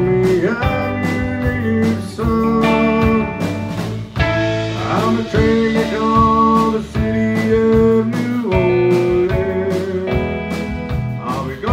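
Live country band playing: fiddle over strummed acoustic guitar and electric bass, with sustained, sliding fiddle notes.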